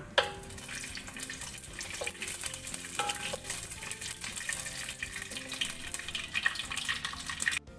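Coconut slices sizzling and crackling in hot coconut oil in a nonstick frying pan, stirred with a wooden spatula that knocks and scrapes against the pan now and then. The sound cuts off suddenly near the end.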